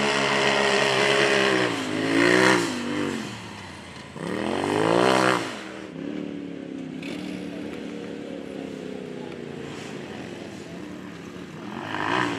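Off-road racing vehicle's engine revving hard several times, its pitch climbing and dropping, then holding at a steadier, lower speed before revving up again near the end.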